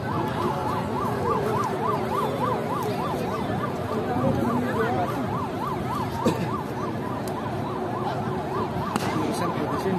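Electronic siren wailing in a fast up-and-down yelp, about three sweeps a second, over the noise of a large outdoor crowd.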